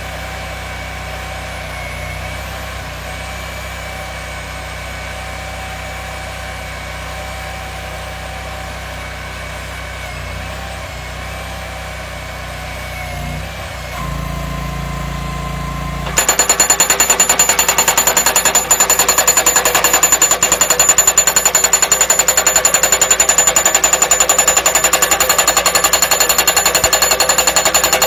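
Self-propelled pile-driving machine: its engine runs steadily, then picks up, and the driving hammer starts. It strikes the post in rapid, evenly spaced blows, loud and continuous, which cut off suddenly.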